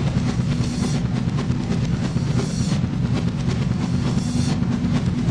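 Loud film score music with a fast, pounding drum beat over a heavy, steady bass, swelling in intensity about every second and a half.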